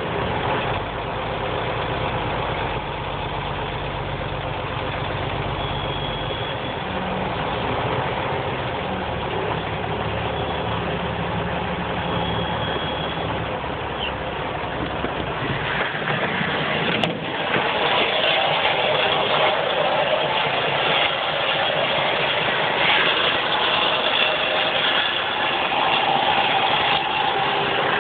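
Tractor engine running steadily at idle. About 16 s in, the low engine note drops away, a sharp click follows a second later, and a louder, even rushing noise fills the rest.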